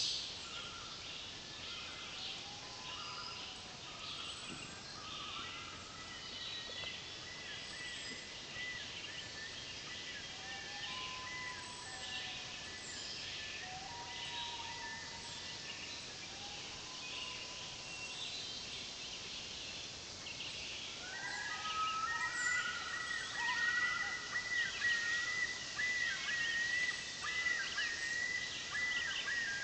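Dawn chorus of many wild songbirds calling and singing over one another. About two-thirds of the way through, a nearer bird starts singing louder, with repeated trilling phrases.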